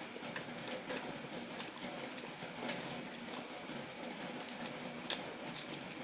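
Close-up mouth sounds of someone eating noodles: wet chewing and smacking in irregular clicks, with one sharper smack about five seconds in, over a steady background hiss.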